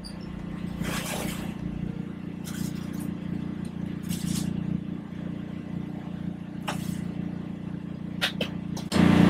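Steady low machine hum of the food trailer's kitchen equipment, with scattered short clinks and rustles of takeout containers being handled. A louder hum comes in suddenly near the end.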